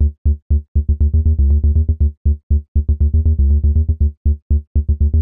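Electronic music: short, clipped synth and bass notes in a fast stop-start rhythm, with brief silences between the notes.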